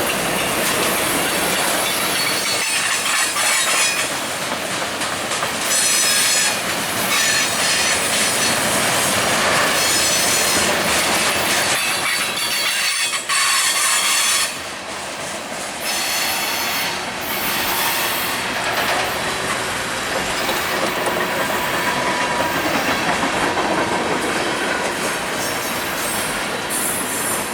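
Freight train cars rolling past close by: a steady clatter and rumble of wheels on the rails, with high-pitched wheel squeal coming and going.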